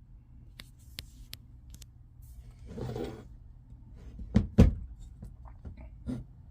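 Hard objects being handled and set down: a few light clicks, a brief scrape about three seconds in, then two loud knocks in quick succession and one more click near the end.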